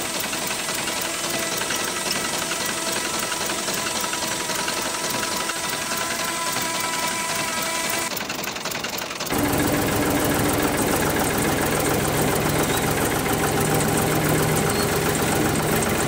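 Small electric motor of a miniature DIY tractor's tipping trolley running steadily as it raises the bed and dumps its load of soil. The whine turns louder and lower about nine seconds in.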